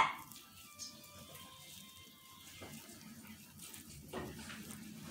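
Faint background music over low kitchen room noise, with a sharp click right at the start and a few soft handling clicks.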